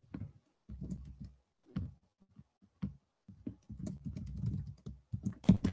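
Computer keyboard typing: irregular taps and thuds that cut in and out, with a sharper click near the end, picked up by a video-call microphone.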